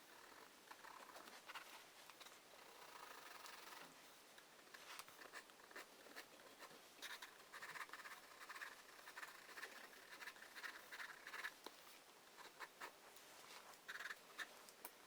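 Faint pencil strokes scratching on paper, in short irregular bursts with small ticks between them.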